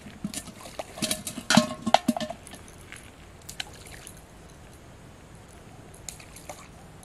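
Metal pot clinking and knocking as it is handled, several quick strikes with a short ring in the first two seconds or so, then a few faint taps.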